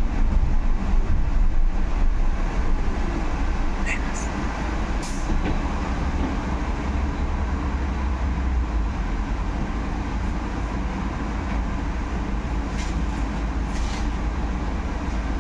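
Cabin noise inside a Solaris Urbino 18 IV electric articulated bus on the move: a steady low rumble of tyres and road, easing slightly over the first few seconds. A few brief high clicks or squeaks sound from the interior.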